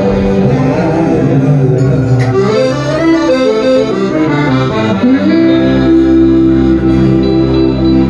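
Piano accordion playing a melodic run over strummed electric and acoustic guitars. About five and a half seconds in, the band settles onto one long held chord.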